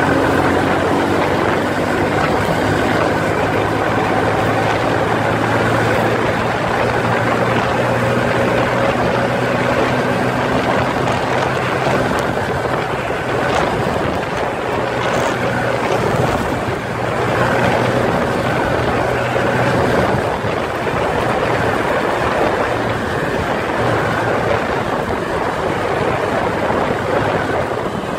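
Kawasaki Rouser 135LS single-cylinder engine running while the bike is ridden, its note rising a little at first and then holding steady. Heavy wind noise buffets the microphone throughout.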